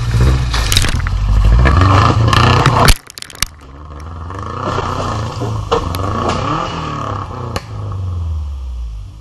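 Subaru's engine revving under load on a rough offroad track, with clattering and scraping knocks from the vehicle. The sound breaks off abruptly about three seconds in, then the engine picks up again, its revs rising and falling, with a few sharp knocks.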